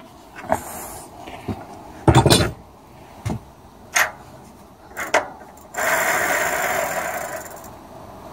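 Knocks and clicks of handling, with the loudest about two seconds in, while a bicycle tyre is being pumped up. About two-thirds of the way in comes a hiss of air lasting under two seconds, with a thin whistle in it.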